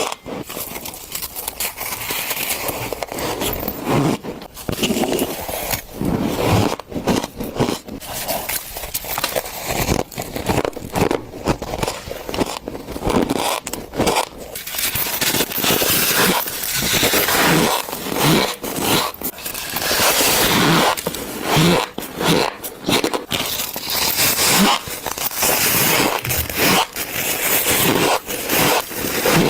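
Shaved ice being bitten and chewed close to the microphone: continuous crunching with dense crackles and squeaks.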